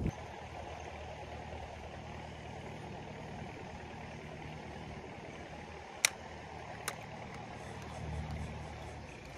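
Steady low hum of a distant engine, with two sharp clicks about a second apart a little past the middle.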